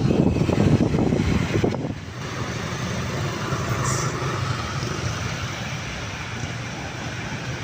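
Street traffic noise: vehicles passing and engines running, louder for the first two seconds, then a steadier, lower hum.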